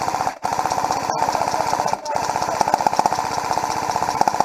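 Airsoft electric gun firing on full auto at close range: a fast, even rattle of shots, broken by a few momentary pauses in the first two seconds.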